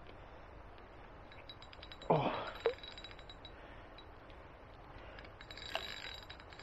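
Faint clicking from a fixed-spool reel and rod as a hooked fish is played on a hard-bent rod, with one short, louder rush of sound about two seconds in.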